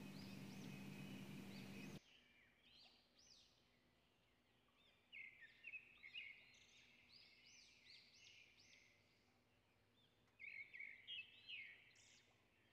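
Near silence, with faint high bird chirps in two short bouts, about five seconds in and again near the end. A low hum and hiss in the first two seconds cuts out suddenly.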